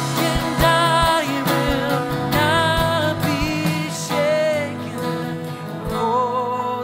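A man singing a slow worship song, sustaining long notes, over his own steadily strummed acoustic guitar.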